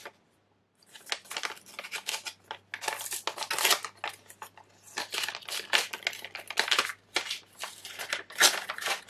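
White paper envelope torn open by hand, its paper crinkling and rustling in a quick run of crackles that starts about a second in.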